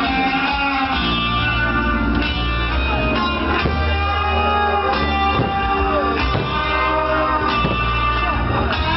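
Music with guitar and a steady bass line.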